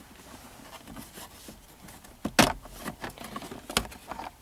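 Plastic cup holder insert of a 2010 Mazda3's center console being worked loose and lifted out by hand: a few sharp plastic clicks and knocks, the loudest about two and a half seconds in and another near the end.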